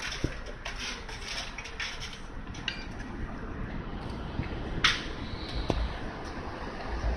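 Light metallic clicks and taps of hand tools working on a signboard's metal fittings. There is a quick run of small clinks in the first few seconds and one sharper click just before the midpoint.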